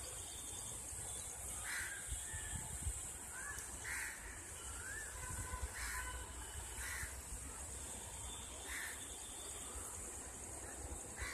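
A crow cawing repeatedly, about six caws spaced a second or two apart, with a few rising chirps from other birds and a low rumble underneath.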